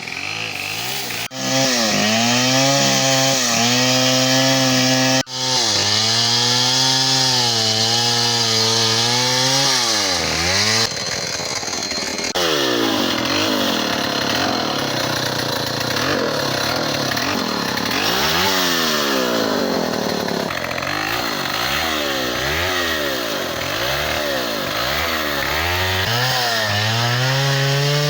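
Chainsaw cutting into a big tree at high revs, its pitch sagging under load and picking up again. Midway it revs up and down repeatedly, about once a second, before settling back to a steady high-speed cut.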